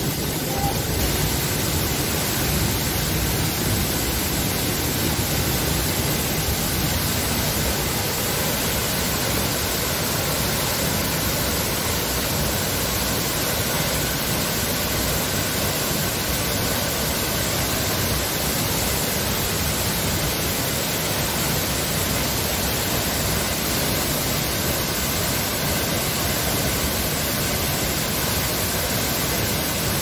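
Two tall waterfalls pouring down into a shallow pool: a steady, even rush of falling water.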